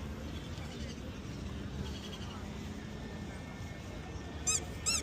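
Steady low outdoor background hum. Near the end, two short, high-pitched chirps begin and repeat.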